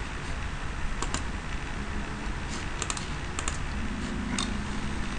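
A handful of scattered clicks from a computer keyboard, some in quick pairs, over a steady background hiss.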